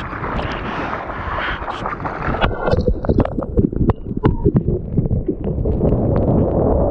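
Water splashing and sloshing close against a surfboard-mounted camera during paddling, then a run of sharp slaps about two and a half seconds in as the board catches the wave and hits the chop, giving way to a steady rush of water as the board planes across the wave.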